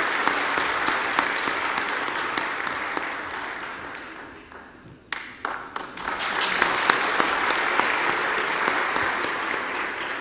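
Large audience applauding in a hall. The clapping dies down about four seconds in, where a few sharp knocks stand out, then swells again and fades near the end.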